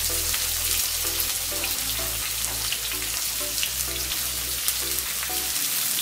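Chopped onion sizzling in hot oil in a kadhai with garlic and green chillies. It makes a steady frying hiss with scattered small crackles.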